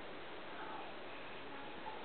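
Steady background hiss, with a few faint, brief high tones near the middle.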